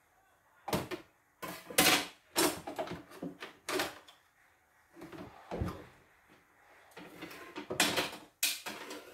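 Plastic housing of a CNY E960 embroidery machine being handled and worked loose with a screwdriver: an irregular string of knocks, clacks and scrapes.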